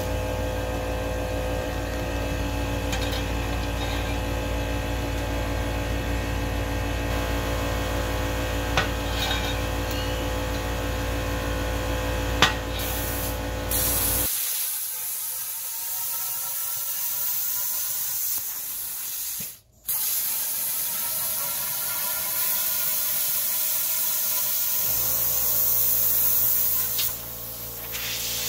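Arc welding on a thick steel pipe: the welder's steady hum with the arc crackling. About fourteen seconds in it changes to a plasma cutter's steady high hiss as the torch cuts through the steel.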